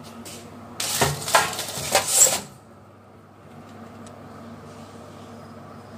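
Metal clattering from an oven rack and baking tray of buns being handled, a rattling run of clanks lasting under two seconds about a second in, over a steady low hum.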